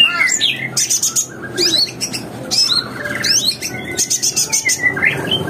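Several songbirds singing over one another: rapid chirps and fast whistled slurs, with a quick run of dry clicking notes about four seconds in.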